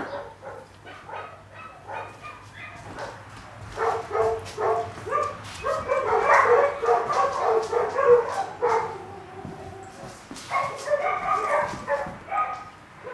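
A dog whining and yipping in many short, high calls, coming thickest in two louder spells, one through the middle and one near the end.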